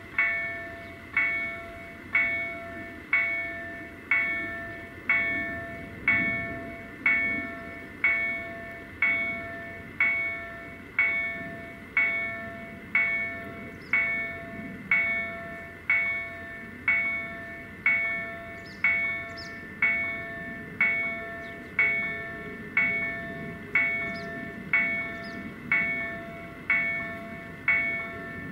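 Level crossing warning bell striking steadily about once a second, each ring fading before the next, while the barriers are down to warn of an approaching train. A low rumble sits beneath the bell.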